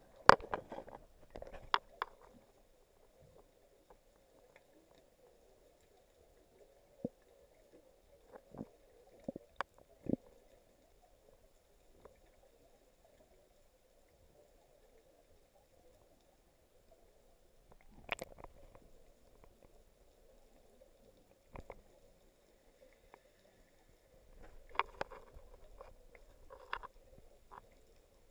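Muffled underwater sound picked up by a camera in its waterproof housing: a faint steady hum with scattered sharp clicks and knocks, in clusters near the start, about a third of the way in, around the middle and near the end.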